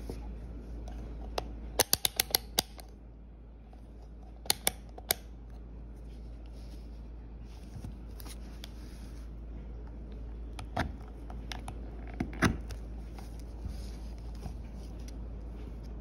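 Sharp plastic clicks from handling a Mastercraft digital multimeter: a quick run of about six clicks about two seconds in, three more near five seconds, and a few scattered clicks later, over a low steady hum.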